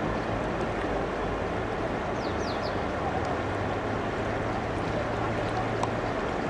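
Rushing river water, a steady even noise, with three faint quick high chirps about two seconds in.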